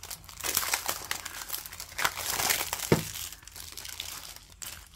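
Clear plastic shrink-wrap being peeled off a CD jewel case and crumpled in the hands: a dense run of crinkling and crackling, with one sharper snap about three seconds in.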